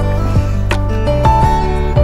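Background music: a gentle instrumental with long held notes.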